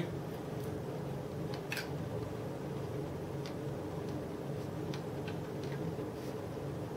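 Quiet eating sounds: a few faint clicks from chewing and a spoon in a ceramic bowl, scattered over a steady low room hum.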